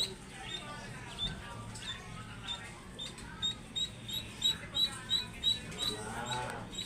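Ducklings peeping: a steady run of short, high peeps, about three a second, with lower wavering calls mixed in, loudest near the end.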